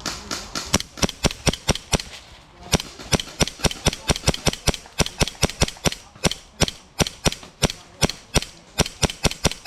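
Airsoft gun firing a rapid string of single shots, about four or five a second, with a short break about two seconds in before the shooting resumes.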